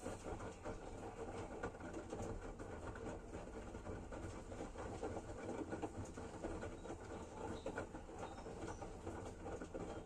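Front-loading washing machine in its wash phase: the drum turning, with laundry and soapy water sloshing and tumbling inside, over a low hum.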